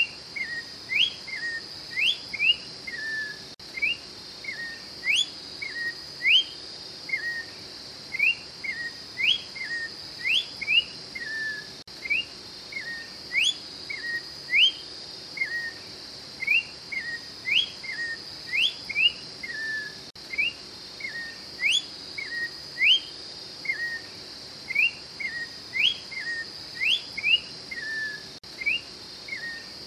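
Orange-backed troupial singing: short phrases of three or four clear whistled notes, some sharply rising and some slurring down, repeated about every two seconds. Under the song runs a steady high-pitched buzz.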